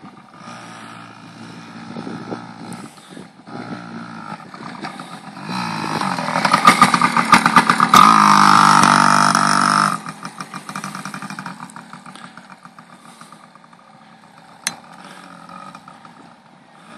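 Yamaha 80cc youth dirt bike's two-stroke single revving as it rides the whoops. The engine gets louder and climbs in pitch as it passes close, then drops away suddenly and fades as the bike moves off across the track.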